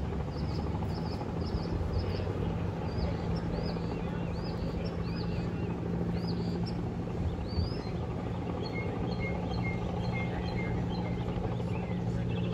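Small birds chirping in short repeated calls, about two a second at first, then a run of lower chirps after the middle, over a steady low hum.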